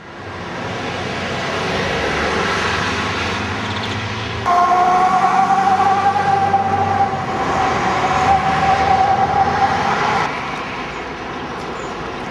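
Road vehicle noise with an engine hum. About four seconds in, a steady high two-note whine or siren-like tone starts, rising slightly in pitch, and stops abruptly about six seconds later.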